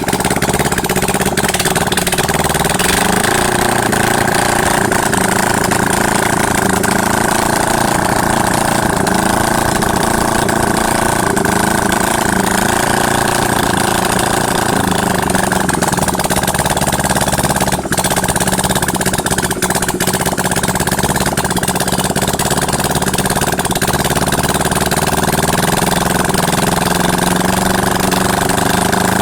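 Freshly rebuilt Yamaha XS400 parallel-twin engine running steadily, its pitch wavering slightly near the end.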